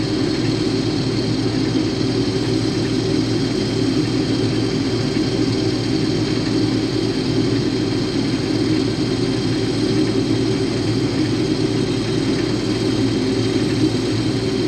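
Case IH combine running steadily while cutting wheat: a constant, unchanging drone of engine and threshing machinery.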